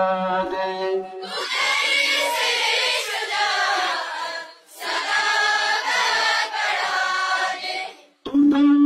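A man sings a line of an Urdu prayer (dua) through a microphone. About a second in, a large chorus of schoolchildren sings it back in two long phrases with a short break between them. The singing stops near the end and the single voice starts again.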